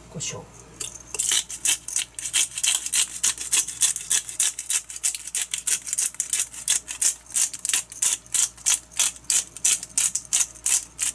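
A metal salt-and-pepper shaker can shaken rhythmically, about four to five shakes a second, the grains rattling inside. The shaking starts about a second in.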